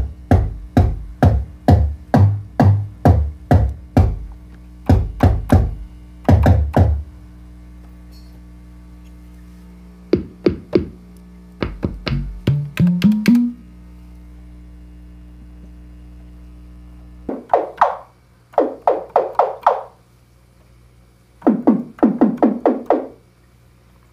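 Make Noise 0-Coast synthesizer patched as a drum voice, playing fast rhythmic patterns of deep kick-drum hits for about seven seconds. After a pause comes a short run of hits that climbs in pitch, then two clusters of tom-like hits that each drop in pitch. A low steady hum sits underneath.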